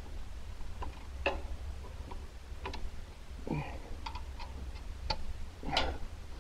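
Scattered light metallic clicks, about ten at uneven intervals, as a small wrench is fitted onto and turns the fasteners on the emblem studs, over a steady low hum.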